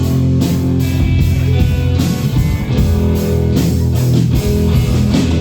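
Rock band playing an instrumental passage: distorted electric guitar chords over bass and a steady drum beat.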